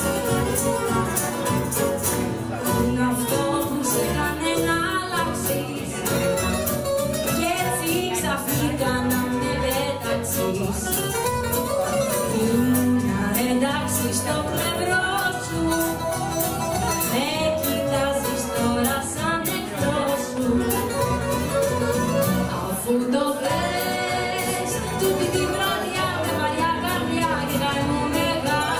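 Live band playing a Greek popular song: violins and strummed acoustic guitar, with a woman singing the melody over them.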